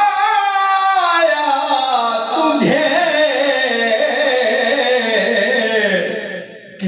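A man's voice reciting a naat in long, held, wavering melodic notes, amplified through a microphone. The voice drops away briefly near the end before resuming.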